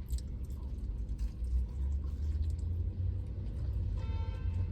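Low, steady rumble of a vehicle engine heard from inside a parked truck's cab, with a brief beep-like tone about four seconds in.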